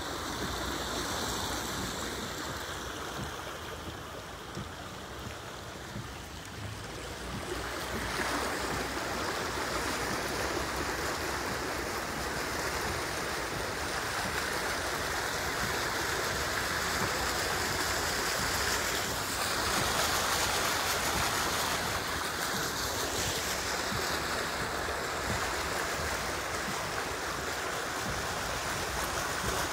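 Steady rushing noise of heavy rain and floodwater on a flooded street, getting louder about eight seconds in.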